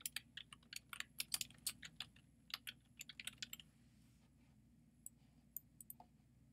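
Typing on a computer keyboard: a quick run of keystrokes for about three and a half seconds, then a few single clicks near the end.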